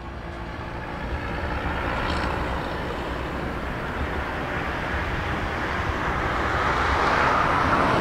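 A road vehicle running on the road, a steady rumble and road noise that grows gradually louder as it approaches.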